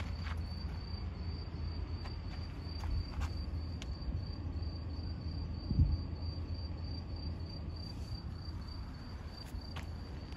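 An insect chirping steadily: a high-pitched pulse repeating about four times a second, over a low rumble of wind and camera handling. A single thump about six seconds in is the loudest sound.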